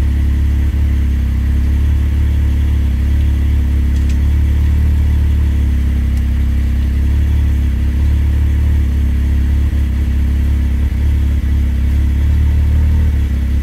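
2018 Can-Am X3 Turbo R's turbocharged Rotax three-cylinder engine idling steadily with the vehicle at a standstill, heard from inside the cab.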